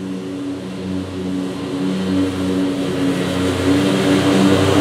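Scag Cheetah zero-turn mower running with its cutting deck engaged, getting steadily louder as it drives closer.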